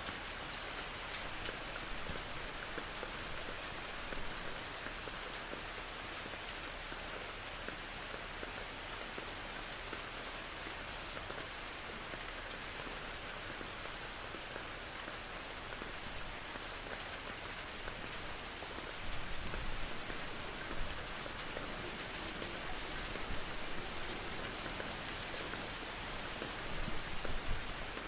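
Steady, heavy rain falling, a dense even hiss of drops on surfaces, with a few brief louder swells in the second half.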